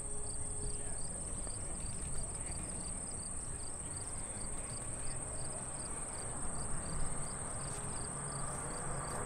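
Crickets chirping in a rapid, regular pulse, with a constant high insect buzz, over a faint low rumble.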